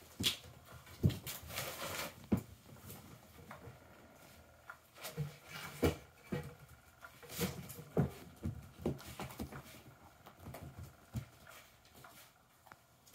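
Kittens playing on a carpet and a fabric cat toy: irregular soft thumps, scuffles and patter from pouncing and scampering.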